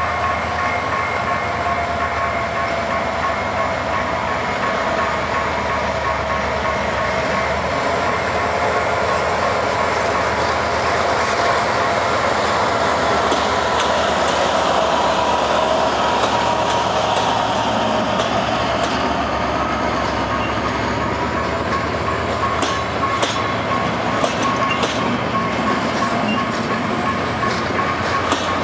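Diesel-hauled passenger train passing close: the locomotive's engine runs with a steady whine, then the coaches roll by, and in the second half the wheels click sharply over rail joints and switch points as the train crosses from one track to another.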